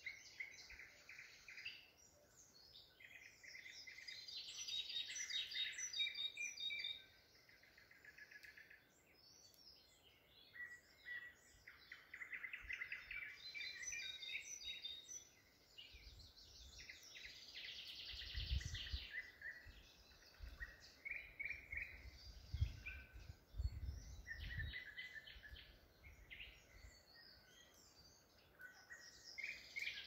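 Songbirds singing in a broadleaf forest in May: several birds in turn and overlapping, each phrase one to three seconds of quick repeated notes or trills. A few low rumbles come in from about halfway through.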